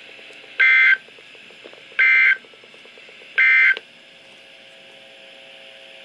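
Weather alert radio sounding the SAME end-of-message code. Three identical short bursts of data tones, about a second and a half apart, mark the end of the National Weather Service warning broadcast.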